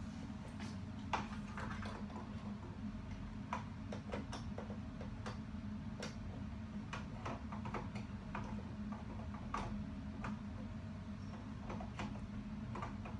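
Scattered plastic clicks and light knocks of a flat-screen computer monitor being handled and lifted on its stand, over a steady low hum.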